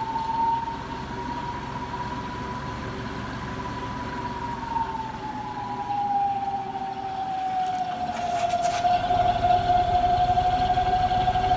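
Electric cutter motor spinning the mower blades on a test run, giving a steady high whine. The whine drops slightly in pitch about halfway through, and a low rumble grows louder near the end.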